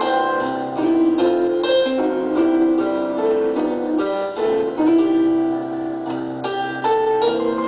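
Electronic keyboard played with a piano sound: a steady run of full chords with held low notes beneath.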